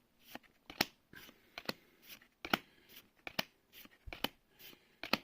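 Magic: The Gathering trading cards being flipped through one at a time, a run of short, crisp card snaps about two a second.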